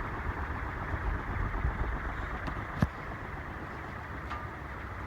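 A 36-inch Banvil Gold Line industrial ceiling fan with a cast-iron motor and aluminum blades running on high speed: a steady rush of moving air with low rumble, heaviest in the first two seconds. A single sharp click about three seconds in.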